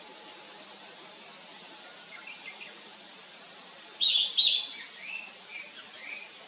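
Narcissus flycatcher singing: a faint short phrase about two seconds in, then a loud phrase starting about four seconds in with two sharp high notes that rise and fall, followed by several lower warbled notes.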